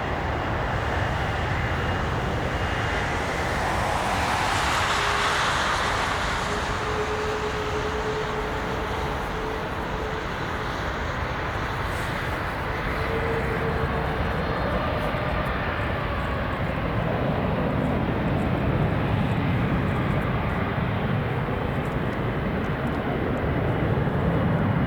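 Airliner jet engines heard close to the runway: a continuous engine noise that swells about five seconds in, with a faint whine, and a deep rumble building near the end.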